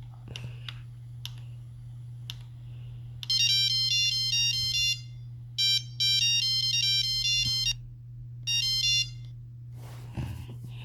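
A Nokia mobile phone plays an Apple iPhone ringtone as a beeping tune of quick stepped notes. The tune comes in three bursts with short gaps, the last one brief, after a few sharp clicks.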